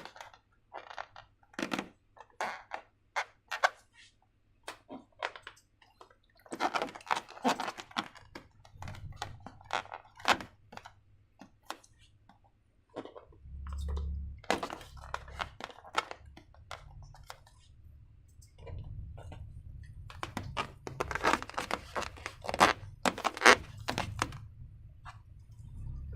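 Slime being squeezed and worked by hand: irregular sticky clicks and crackles, sparse at first and then in dense clusters, with occasional low dull thuds.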